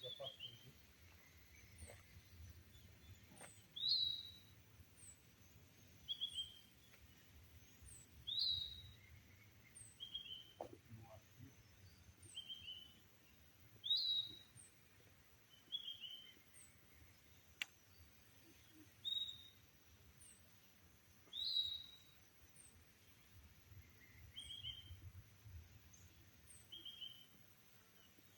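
Birds calling: short notes repeated every second or two, with a louder call about every five seconds and a fainter high chirp repeating over them. A low rumble runs underneath.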